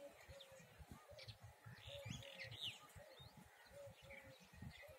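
Faint birdsong: small birds chirping with quick up-and-down notes, over a lower short note that repeats every half second or so, with a low rumble underneath.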